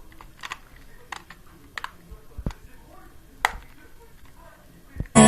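Scattered small clicks and taps of hands and tools handling a phone during a screen repair, the sharpest about three and a half seconds in. Music starts right at the end.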